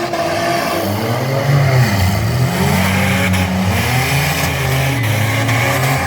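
Several stock car engines revving hard at once in an off-road derby heat, their pitches rising and falling against one another over steady engine and tyre noise.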